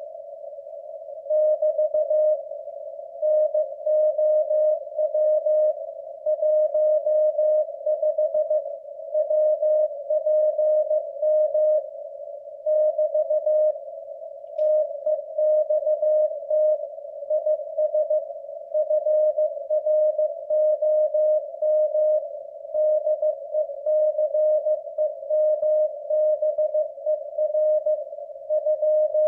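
Morse code sent at 15 words per minute in a W1AW code practice transmission: a single mid-pitched tone keyed on and off in dits and dahs, over a steady narrow band of hiss at the same pitch. The code starts about a second and a half in.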